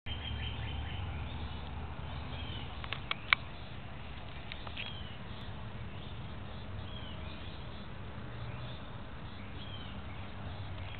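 Outdoor ambience with scattered short bird chirps, over a steady low rumble. A few sharp clicks about three seconds in are the loudest sounds.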